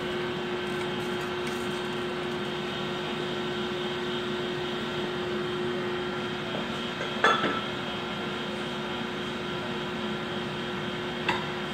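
Metal lathe running steadily with a constant hum, turning down a steel pipe. A sharp metallic clink with a short ring sounds about seven seconds in, and a lighter click near the end.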